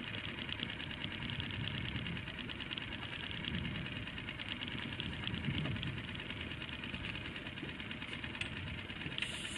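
Small fishing boat's engine idling steadily, a fast, even beat under a constant hiss.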